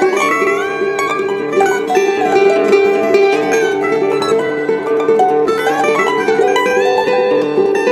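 Background music: a melody on a plucked string instrument, with some notes sliding in pitch.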